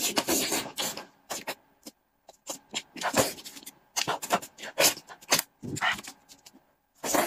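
Close-miked eating sounds: sucking and slurping meat off a stewed sheep's-head bone, with wet chewing and smacking, in short irregular bursts.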